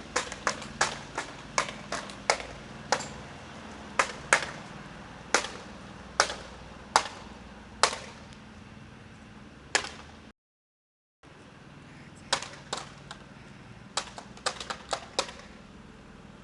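Irregular sharp taps or knocks, one to three a second and sometimes in quick clusters, over a steady low hum. The sound drops out completely for under a second about two-thirds of the way through.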